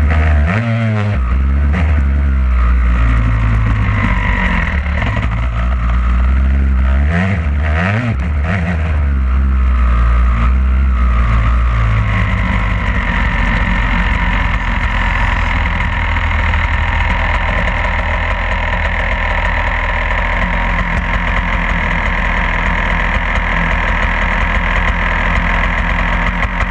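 Two-stroke Yamaha YZ motocross bike's engine heard close up from on board while riding the track: revs rising and falling for about the first twelve seconds, then holding a steadier note to the end.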